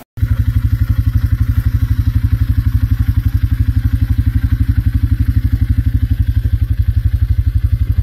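A small engine running steadily at idle, with a rapid, even low putter.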